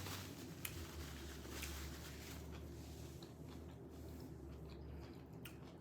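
Faint chewing and squishy mouth sounds of someone eating a shrimp quesadilla, with scattered small clicks, over a low steady hum.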